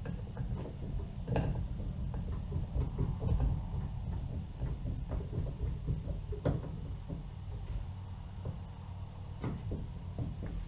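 Irregular clicks and knocks of parts and tools being handled against a plastic kayak hull during a fishfinder install, over a steady low rumble.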